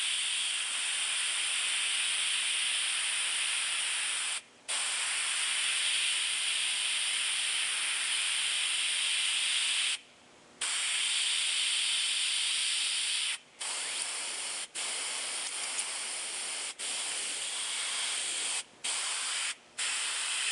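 Iwata airbrush spraying paint with a steady hiss of compressed air, shading in a dark brown-black shadow. The spray stops and restarts seven times, briefly each time, with the longest pause about half a second, near the middle.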